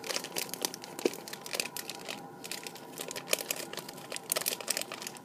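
A plastic M&M's candy bag crinkling in the hands as its top is folded and rolled shut: a continuous run of irregular crackles.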